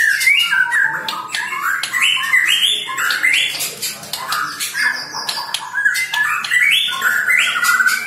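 White-rumped shama (murai batu) singing without pause: a rapid run of loud, rising and falling whistled and harsh phrases, with sharp clicking notes in between.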